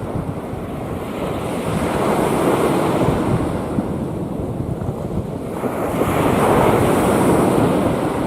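Rough sea waves surging and breaking, in two swells of rushing noise, the second one about six seconds in the loudest, with wind buffeting the microphone.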